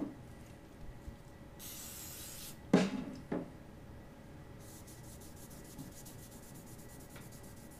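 A brief hiss of CSM aerosol degreaser sprayed onto a gauze pad, then two short knocks, the first the loudest, followed by the pad rubbed quickly back and forth over a steel bar to degrease its surface.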